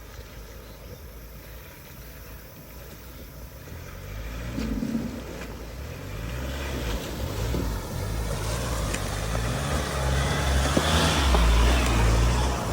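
A 4WD's engine working off-road, its revs rising and falling as it drives over uneven ground. It comes in about four seconds in and grows louder, with a rush of tyre or terrain noise at its loudest near the end.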